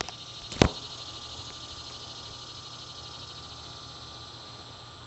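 A sharp knock, then a steady hiss with a faint high whine that slowly fades.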